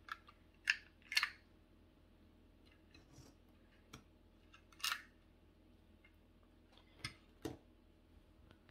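Handheld embossing label maker being worked, its letter wheel and press handle giving short, sharp plastic clicks and snaps. There is a cluster in the first second or so, the loudest click about five seconds in, and two more near the end.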